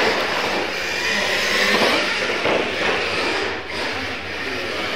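Radio-controlled monster trucks racing across a concrete floor: their electric motors whine and their tyres run on the concrete in a loud, steady noise.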